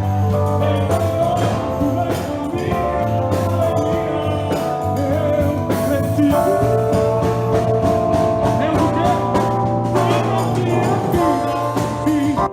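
Music cutting in at once: the opening of a gospel song, with sustained chords over a held bass and regular drum hits.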